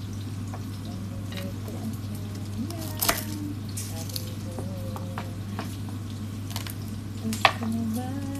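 Kitchen knife knocking on a wooden cutting board while garlic cloves are cut and peeled: two sharp knocks about three and seven and a half seconds in, with lighter ticks between, over a steady hum and hiss.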